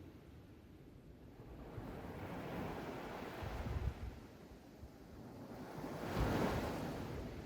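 Ocean waves breaking on a beach: two waves swell and wash in, the second the louder, peaking about six seconds in.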